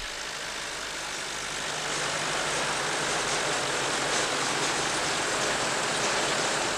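Tractors and a working onion loader running steadily, a continuous mechanical din with a rushing, rattling hiss from the elevator conveyor; it grows a little louder about two seconds in.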